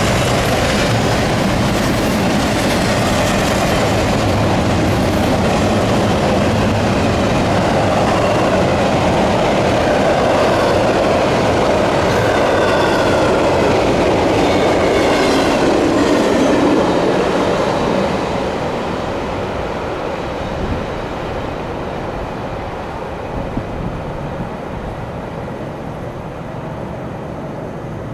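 Double-stack container freight train rolling past: a steady loud rumble of cars on the rails, with faint high wheel squeals mid-way. The sound drops off about two-thirds of the way through.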